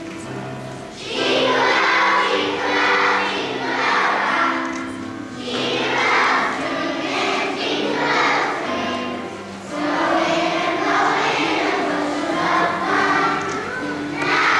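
A choir of first-grade children singing together in phrases over an instrumental accompaniment, the voices coming in about a second in.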